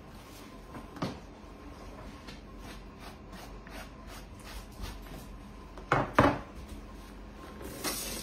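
Light taps and rubbing as chopped rosemary is brushed by hand off a cutting board. Two sharp knocks close together about six seconds in, as the board is set down on the countertop. A kitchen faucet starts to run near the end.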